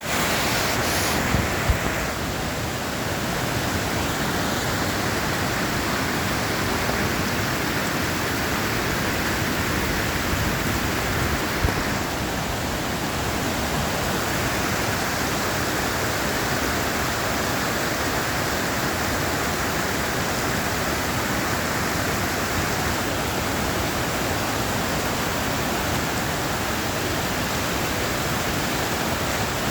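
Steady rushing roar of ocean surf, even throughout with no distinct wave breaks; two brief knocks, one about a second and a half in and one near twelve seconds.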